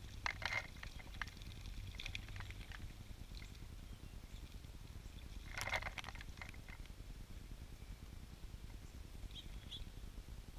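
Bluebird bathing in a birdbath, dipping and flicking its wings in the shallow water: short bursts of splashing about a second in, around two seconds, and loudest near six seconds.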